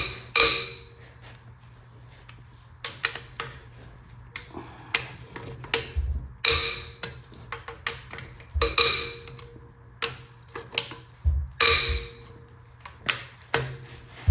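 Hand tools working on an engine: repeated sharp metallic clinks and clatter, several of them loud and ringing, with quieter handling sounds in between.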